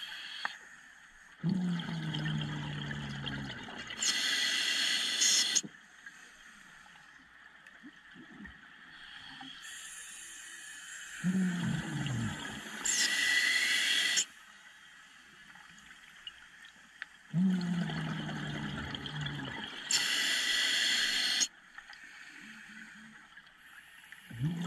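Scuba diver breathing through a regulator underwater: three slow breaths, each a hissing inhale with a low falling tone followed by a louder rush of exhaled bubbles, with a fourth breath starting near the end.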